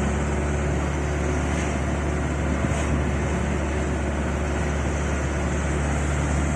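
Steady engine and road noise of a motorhome driving along, heard from inside the cab as an even low hum.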